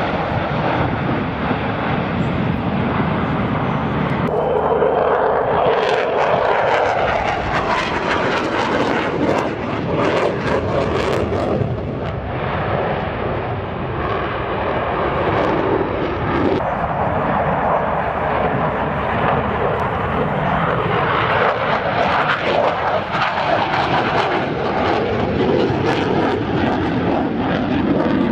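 Jet engines of a formation of display jets flying overhead: a loud, steady rushing noise that swells about four seconds in.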